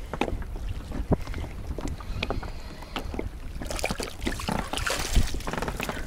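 Wind buffeting the microphone and choppy water against an inflatable boat, with scattered knocks. A louder, hissing noisy stretch comes about two-thirds of the way through as a hooked perch is brought to the landing net.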